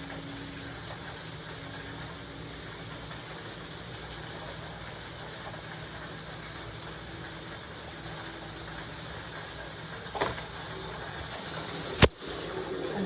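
Steady low machine hum, with a light knock about ten seconds in and a loud sharp knock near the end.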